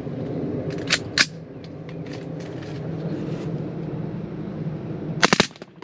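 A rapid burst of about five .22 LR shots near the end, from an AR-style rifle with a CMMG .22 conversion bolt carrier and a forced-reset trigger fitted with a 3D-printed auto trip, firing automatically. Two sharp clicks about a second in, over a steady hum.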